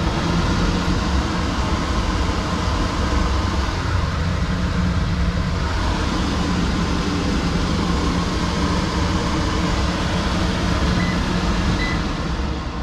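Kitchen range hood fan running steadily: loud rushing air with a low hum, powered through the RV's inverter. Near the end, two short beeps come from its control panel and the noise starts to fall away.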